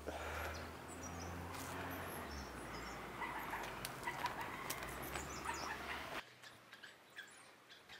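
Small birds chirping now and then over a low steady hum, with a few faint clicks. The hum cuts off abruptly about six seconds in.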